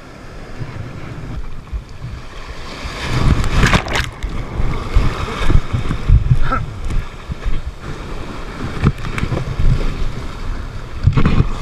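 Breaking surf and churning foam right at a kayak as it pushes out through the waves, with wind buffeting the microphone. It grows louder from about three seconds in, with sharp splashes as waves hit.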